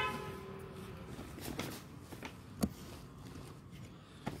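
Handling noise as an LED tube light fitting is picked up: a few separate faint clicks and taps, one sharper knock near the middle, after a short hummed tone at the start.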